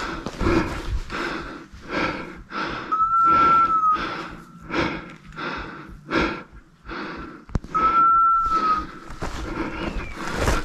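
A person breathing hard and rhythmically while walking, a breath about every half second. A steady, high-pitched beep about a second long sounds twice, roughly five seconds apart.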